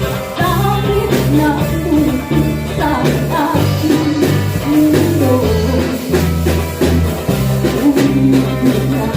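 Live church band music: a drum kit keeping a steady beat under a bass line, guitar and singing.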